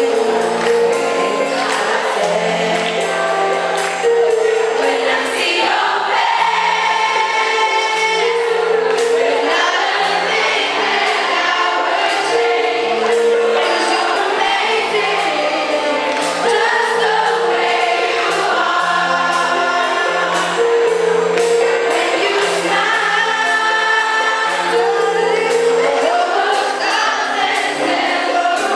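A live band playing a pop song while a group of voices sings together, with percussion keeping a steady beat.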